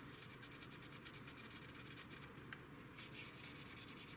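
Faint rubbing of a cotton swab on the painted plastic of a 1/48 SBD-3 Dauntless model kit, quick small strokes wiping off panel-line wash.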